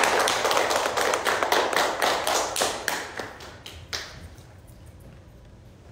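Several people clapping hands, a dense patter of quick claps that dies away about three to four seconds in.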